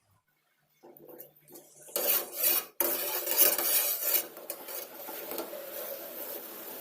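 Kitchen utensils clinking and scraping against a pot or bowl, as in stirring, loudest from about two seconds in. It then settles into a steady hiss.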